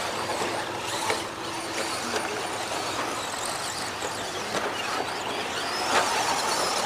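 Radio-controlled off-road trucks and buggies racing on a dirt track, their motors whining as they pass, with a few short knocks.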